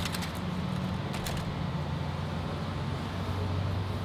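A steady low mechanical hum of a running machine, with a few light clicks near the start and again about a second in.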